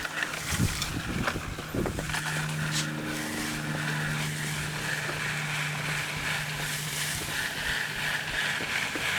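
A few knocks, then an engine running at a steady speed from about two seconds in.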